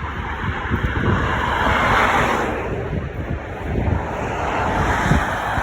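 Road traffic going past close by, the tyre and engine noise swelling as a car passes about two seconds in and another near the end, with wind buffeting the microphone. No horn sounds.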